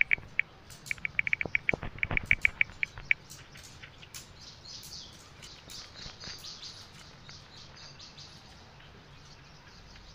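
Smartphone on-screen keyboard tap sounds as a search is typed: quick runs of short, same-pitched clicks that stop about three seconds in. Fainter, higher ticks follow.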